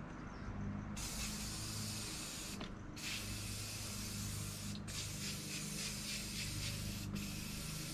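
Aerosol spray paint can hissing as paint is sprayed onto a metal saw table in passes. The hiss starts about a second in and stops briefly three times between passes.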